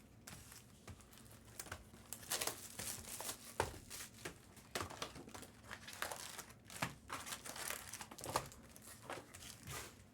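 Trading card pack wrappers crinkling and tearing, in irregular crackly bursts, as packs are handled and opened.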